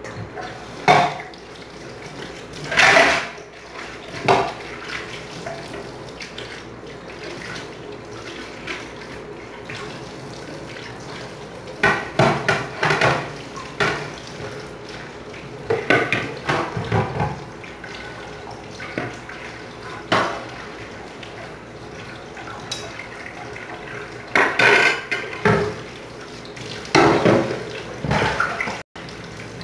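Dishes being washed at a kitchen sink: irregular clatter of plates and utensils against the sink and each other, with splashing and running water from the tap.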